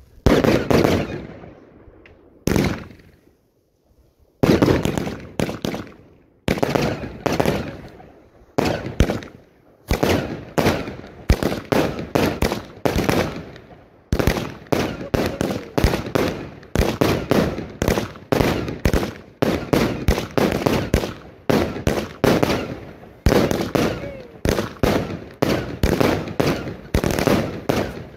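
Fireworks going off at close range from the firing position: a fast series of sharp bangs, each with a fading tail. After a short lull about three seconds in, they come thick and fast, roughly two a second.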